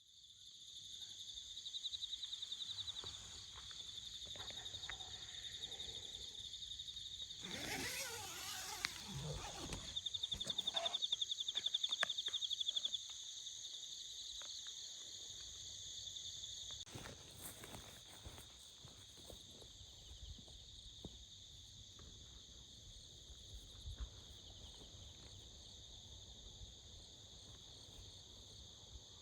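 Insects trilling in a steady, high, rapidly pulsing chorus, with a spell of rustling and knocking about a third of the way in.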